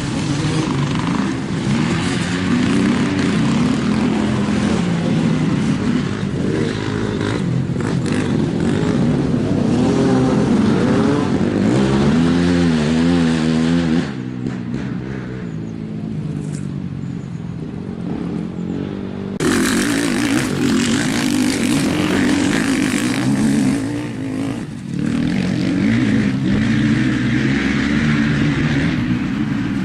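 Off-road vehicle engines running and revving, with the pitch swinging up and down about twelve to fourteen seconds in. The sound turns suddenly duller and quieter about fourteen seconds in, then louder again about five seconds later.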